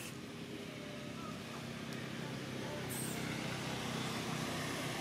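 Low, steady rumble of a motor vehicle's engine that grows louder about halfway through, as if a vehicle is approaching.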